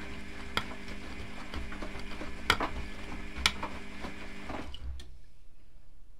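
Front-loading washing machine (Privileg Classic 30612) tumbling its load in the first rinse with a high water level: a steady motor whine with water churning, and three sharp knocks as the load drops in the drum. The motor whine cuts off about three-quarters of the way through as the drum pauses.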